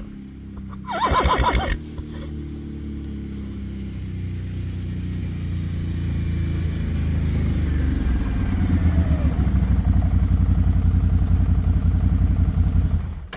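A vehicle engine running steadily and growing louder, then stopping abruptly at the end. About a second in, a horse gives one short, loud whinny.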